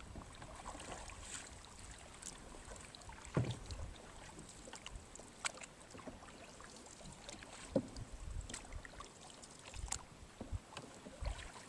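Canoe on the water: paddle strokes and water sounds, with scattered light knocks and clicks. One knock about three seconds in is louder than the rest.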